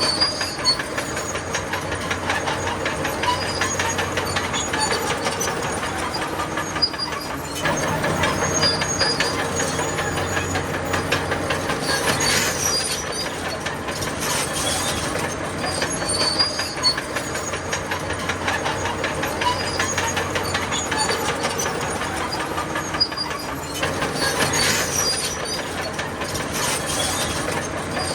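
Crawler bulldozer working, its diesel engine running under load while the steel tracks clank and squeal.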